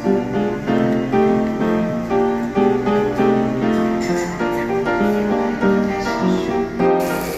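Background piano music, a melody of short notes over steady chords, with a hiss coming in near the end.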